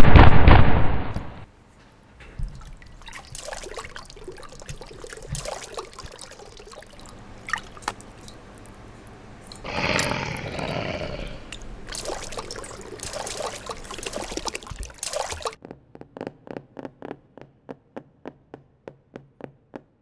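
Homemade foley sound effects: a loud rushing, water-like burst at the start, then scattered clicks and rustles, a second rushing sound about ten seconds in, and a regular ticking, two or three a second, near the end.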